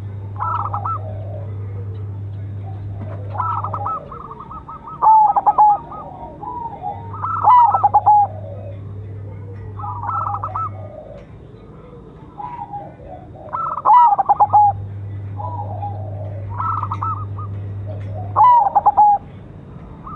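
Zebra dove (perkutut, silver colour variety) cooing: its stuttering, rolling coo phrases repeat every second or two, and a few of them are much louder.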